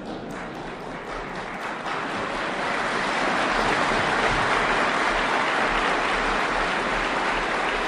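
Audience applauding, swelling over the first few seconds and then holding steady.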